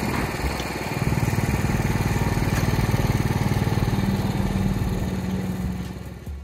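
Engine of construction machinery running with a rapid pulsing beat, louder from about a second in.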